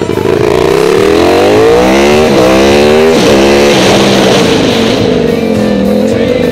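Supermoto motorcycle engine, heard from on board, accelerating hard: its pitch climbs, drops sharply at an upshift a little over two seconds in, climbs again and drops at a second shift about a second later, then holds steady.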